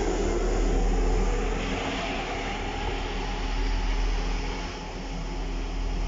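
Class 158 diesel multiple unit pulling away from the platform, its underfloor diesel engines droning steadily with a deep low hum under the rolling noise of the train, easing a little about two thirds of the way through as it draws off.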